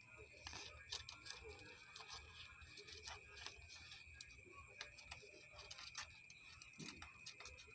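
Very faint, irregular ticks and scratches of abrasive paper rubbed by hand on a small metal valve part for a homemade PCP airgun, over a faint steady high tone.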